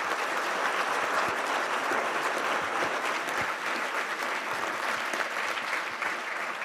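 A large lecture-hall audience applauding, a dense, steady clapping that eases slightly near the end.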